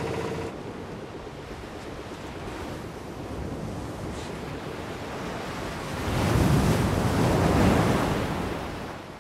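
Sea surf with wind; a wave swells up loud about six seconds in and dies away near the end.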